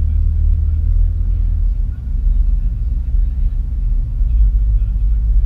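A car driving along a road: a steady low rumble of engine and road noise, with a brief dip about two seconds in.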